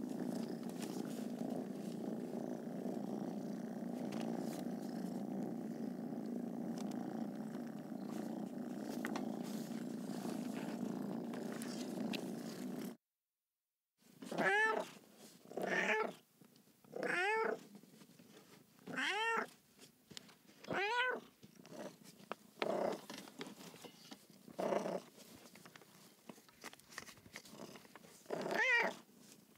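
Domestic cat purring steadily for about thirteen seconds. After a brief pause comes a run of short meows, about one every two seconds, each rising then falling in pitch.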